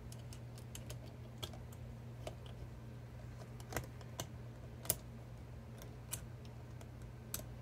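Irregular light clicks and ticks of a screwdriver working small screws into a car stereo's metal chassis, over a steady low hum.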